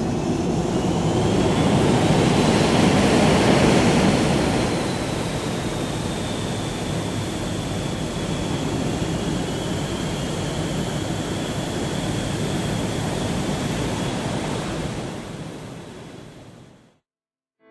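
Jet aircraft engines roaring, a dense steady rush with a high turbine whine that rises at first and then drifts slowly lower. The roar is loudest in the first few seconds and fades out near the end.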